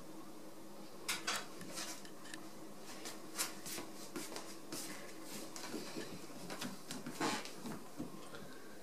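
American Shorthair cat rolling and wriggling on its back on a wooden floor: scattered soft rustles and clicks of fur and paws against the boards, with a few sharper ones about a second in, around three and a half seconds in, and about seven seconds in.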